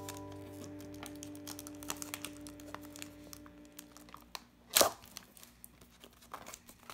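Plastic toy wrapping from an L.O.L. Surprise ball crinkling and tearing in many small crackles, with one loud crinkle just before the five-second mark. A held chord of soft background music fades out a little past halfway.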